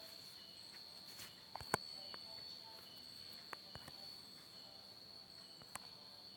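Faint steady high-pitched insect trill, cricket-like, with a few soft clicks.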